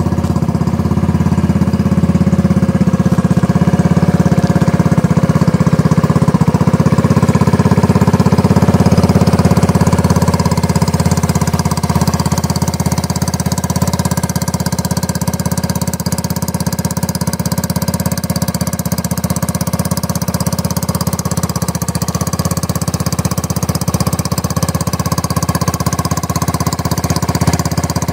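A 150cc single-cylinder dune buggy engine with a gutted exhaust idles steadily with a rapid, rough putter. It runs on old gas and has just been cold-started after months in storage.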